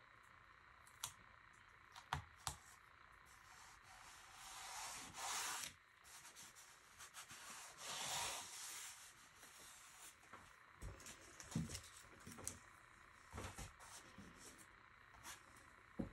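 Quiet handling sounds: scattered light clicks and knocks, with two brief hissing, rustling swells about four and eight seconds in.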